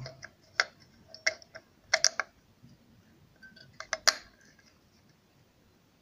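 Batteries being snapped into the plastic battery compartment of a digital LCD alarm clock: a series of sharp clicks and knocks over the first four seconds, the loudest about two and four seconds in.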